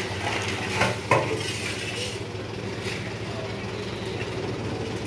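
Dump truck's diesel engine idling steadily while shovels scrape and clink in asphalt mix at the tipped truck bed, with two sharp clanks about a second in.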